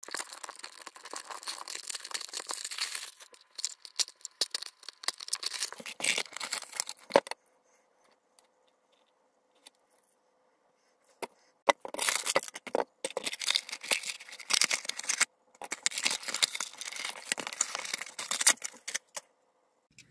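Toy packaging being torn open and unwrapped, in runs of tearing and crinkling. There is a pause of about four seconds in the middle, then more rustling and crinkling.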